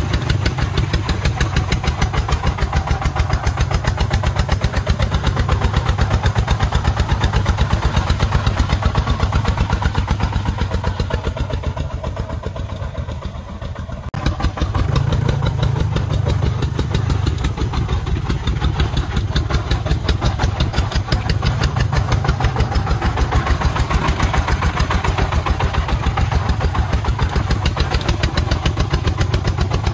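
Single-cylinder diesel engine of a homemade công nông truck chugging steadily in an even pulse while hauling a full load of sand through mud. It fades about twelve seconds in as the truck pulls ahead, then comes back louder.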